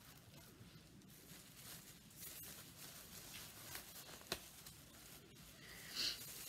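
Faint rustling of protective wrapping being unwrapped by hand, with a few light ticks and a brief louder crinkle near the end.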